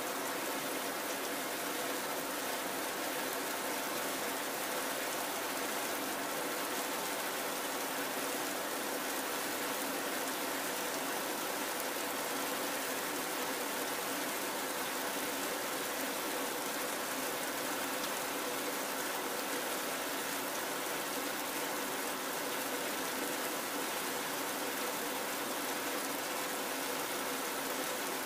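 Steady, even hissing noise, like rain or rushing water, with a few faint steady tones underneath; it holds one level throughout and begins and ends abruptly at edit cuts.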